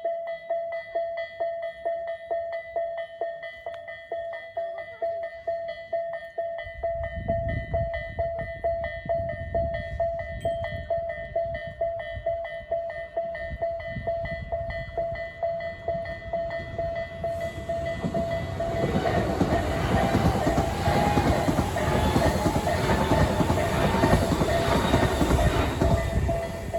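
Japanese level-crossing warning bell of the Isesaki type, an electronic ding repeating about three times a second. A Tobu Isesaki Line train approaches from about six seconds in and passes from about eighteen seconds in, its rumbling and clatter louder than the bell.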